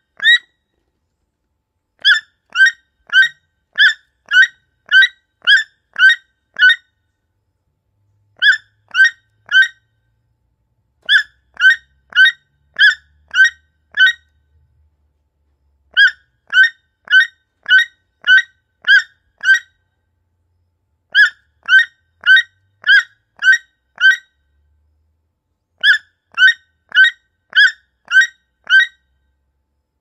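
Toucan calling: short, pitched calls repeated about three every two seconds, in bouts of three to eight calls with pauses of a second or two between bouts.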